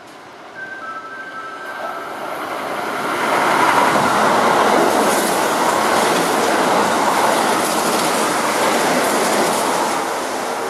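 Kintetsu limited express electric train passing through the station at speed without stopping: a loud rush of wheel and rail noise that builds from about two seconds in and holds until it eases near the end. A two-tone chime sounds briefly at the start.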